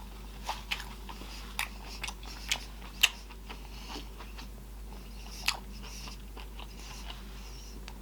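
A person chewing food close to the microphone, with wet smacking and clicking mouth sounds. Several sharp clicks come in the first three seconds and one more a little past the middle.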